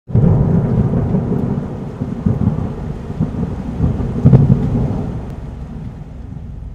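Thunder sound effect: a low rolling rumble that starts abruptly, swells several times and fades toward the end.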